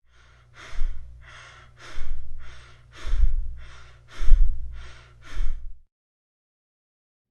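Breath sounds heard through a stethoscope: five quick breaths about a second apart, each a rising rush of air over a low rumble.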